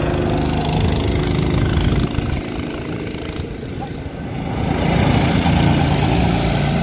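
Small go-kart engines buzzing as karts pass close on the track. The sound drops off about two seconds in as one kart moves away, then swells again as another kart comes near toward the end.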